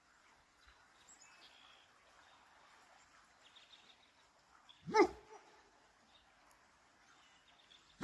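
A dog barks once, a single short, sharp bark about five seconds in, over faint background.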